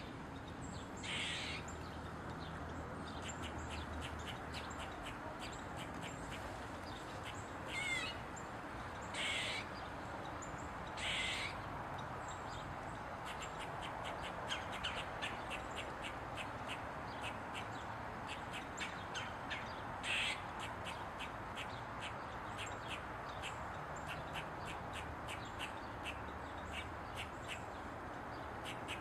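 Eastern gray squirrel barking: a rapid run of short, sharp calls, several a second, broken by about five longer, louder squawking calls, the first near the start and the last about two-thirds of the way in.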